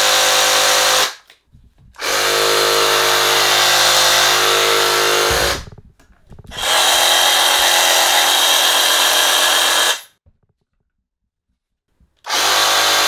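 Two Ryobi 18V cordless reciprocating saws run unloaded in the air, one after the other, the trigger pulled for bursts of a few seconds with short pauses between. The newer RRS18-0 runs faster, about 3,400 a minute against the older RRS1801M's 3,100; both are about equally loud.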